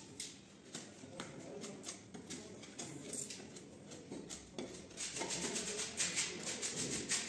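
A knife blade scraping and cutting along the edge of a round plasterboard patch, with gypsum crumbling off in short strokes. The strokes come faster and louder for the last two seconds or so.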